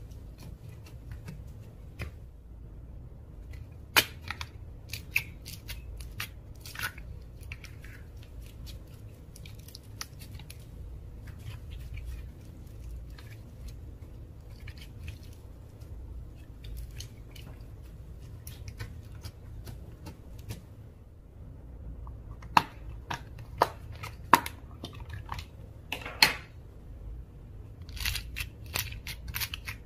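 Slime being kneaded and stretched by hand, giving irregular sticky clicks and pops. A few sharp pops stand out, one about four seconds in and several close together later on, with quicker crackling near the end.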